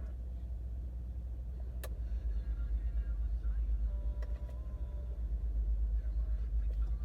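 MTX car subwoofer playing deep bass from the radio, pulsing more strongly from about two seconds in, with a single click just before.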